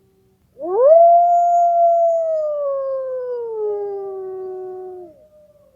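Recorded wolf howl sounding as the timer's end alarm: one long howl that swoops up quickly, holds, then slowly sinks in pitch, with a second howl overlapping near the end.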